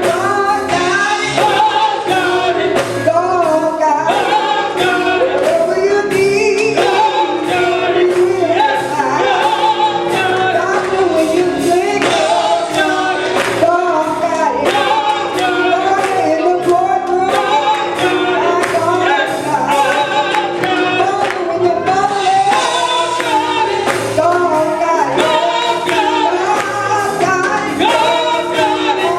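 Gospel music: voices singing together over instruments with a steady beat.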